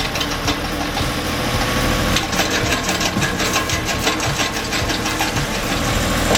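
An engine-driven machine running steadily with a rapid, even clatter.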